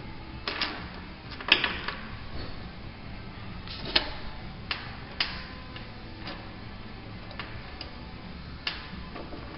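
Small scrap-metal parts clinking on a metal workbench as they are picked up and set down: about ten irregular sharp clicks, the loudest about one and a half seconds in, over a low steady hum.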